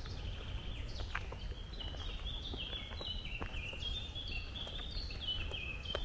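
Footsteps walking on a dirt forest path, with a songbird singing a long run of quick high notes that step down in pitch, over a steady low rumble.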